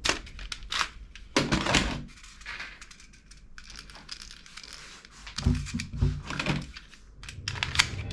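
Handling noise: a string of sharp clicks and knocks, with a few duller thuds about two thirds of the way through.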